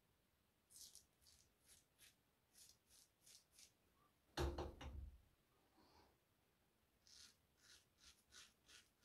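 Single-edge safety razor scraping through stubble and lather in short strokes, about nine in quick succession, then about five more near the end. About halfway there is a brief, louder knock.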